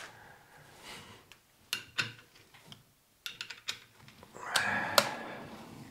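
Scattered clicks and light knocks as an abrasive disc is taken off a bench grinder's spindle and a 240-grit disc is fitted, with a short scraping rub about four and a half seconds in.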